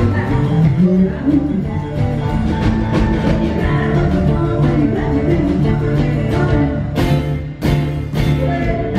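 Live rockabilly band playing: electric and acoustic guitars over drums and upright bass, with a couple of sharp crashes from the drum kit near the end.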